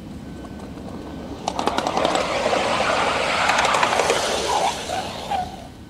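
Steel wheels of a 5-inch-gauge riding car rolling along the rails with a rider aboard. A quick run of clicks over the rail joints comes about one and a half seconds in, and the rolling noise grows, then fades near the end with a few short squeaks.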